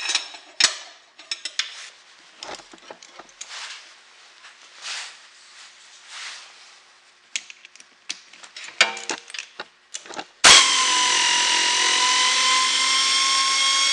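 Scattered metal clinks and clanks from handling the snowblower's drive pulley. About ten seconds in, a pneumatic wrench starts suddenly and runs steadily with a high whine, undoing the pulley's nuts.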